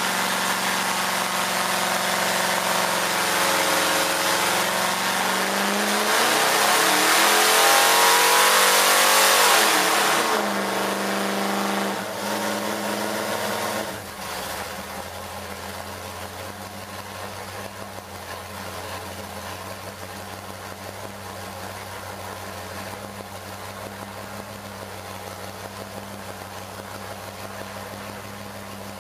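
Ford Motorsport 460 cubic-inch big-block V8 running on an engine dyno: its revs climb for several seconds and it is loudest around a third of the way in. It then drops back in two steps and settles to a steady idle for the second half.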